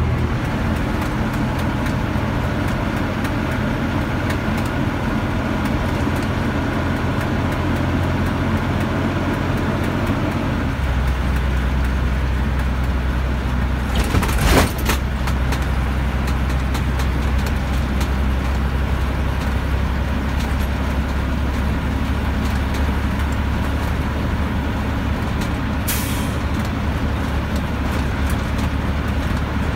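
Bus engine running steadily under road noise, heard from inside the cabin while driving. The engine note changes about a third of the way in. A brief loud clatter comes about halfway through, and a smaller one near the end.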